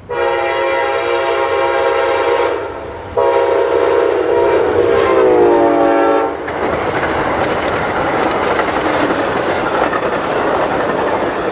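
Locomotive air horn sounding two long blasts, the second dropping in pitch near its end as it goes by. Then the train rolls past with steady wheel and rail noise.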